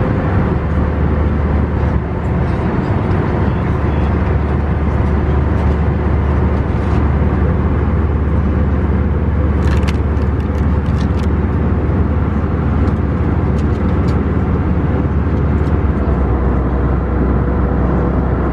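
Steady airliner cabin noise of an Airbus A319 in flight: a deep engine and airflow drone. About ten seconds in there are a few brief crinkles and clicks from a plastic food bag being handled, and the low drone shifts slightly near the end.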